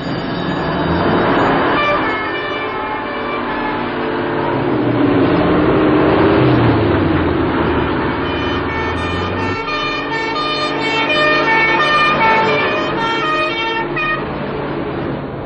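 Old fire engine driving with its siren sounding over the engine noise. The low engine rumble drops away abruptly about two-thirds of the way through, while short pitched siren tones carry on.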